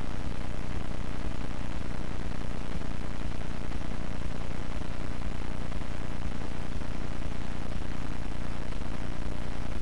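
Steady hiss with a low hum underneath and no other sound: the noise floor of a transfer from an old, apparently silent home movie.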